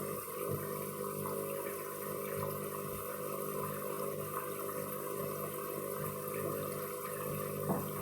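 Water rushing steadily inside a washing machine during its emergency rinse, the extra rinse it runs to clear excess suds after a suds lock.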